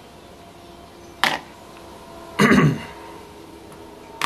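A light click about a second in as a small metal engine part is handled, then one short cough halfway through, over a faint steady room hum.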